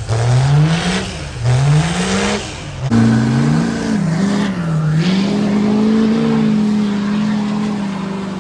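A truck engine revved hard in quick rising blips, about one a second, then held at high revs with a steady note from about three seconds in, sagging briefly once before holding again.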